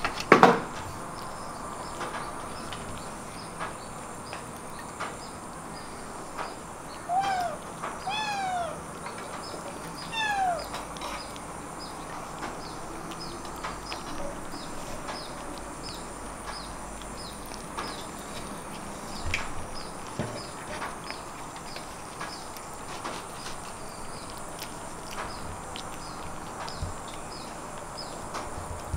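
Three short, falling meows from a kitten about seven, eight and ten seconds in, after a sharp knock at the very start. Faint high chirps repeat steadily in the background.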